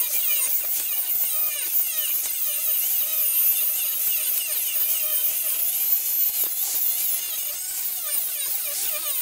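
Angle grinder grinding the steel of a railroad rail: a steady, high-pitched whine over hiss, its pitch wavering as the disc bites into the metal.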